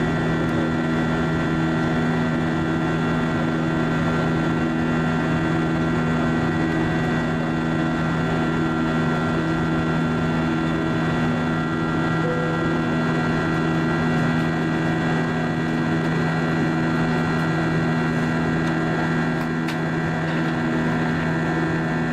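Airbus A320-232 cabin noise heard beside the wing: the IAE V2500 turbofans running steadily at climb power, a constant drone with a low hum that beats slowly and a high engine whine over the rush of air.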